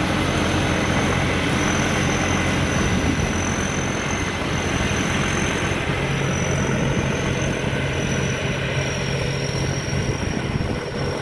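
Combine harvester with a Hino J08C six-cylinder diesel engine running steadily under load, with a thin high whine over the engine.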